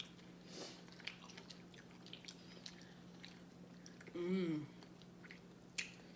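Close-up chewing and mouth sounds of someone eating barbecue chicken wings: small wet clicks and smacks scattered throughout, over a steady low hum. A short voice sound comes about four seconds in.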